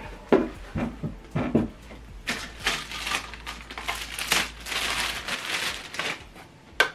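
Packaging being handled: a few light knocks, then about three seconds of rustling and crinkling.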